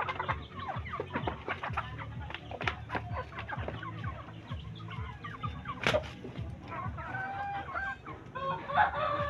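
Shamo roosters sparring: clucking calls, strongest in the last few seconds, over a steady run of short knocks and scuffs, with one sharp crack about six seconds in.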